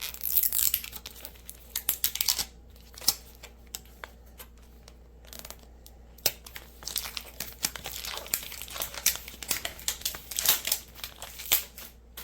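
Packaging of a Snackles toy being opened by hand: crinkling and tearing in irregular bursts, busiest near the start and again through the second half, with a quieter stretch in between.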